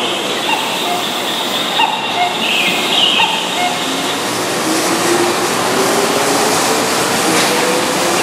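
Keihan 6000 series electric train, an older non-VVVF set, starting away from the platform: a high thin squeal over the first three seconds, then the traction motor whine rising steadily in pitch as the train gathers speed from about halfway through.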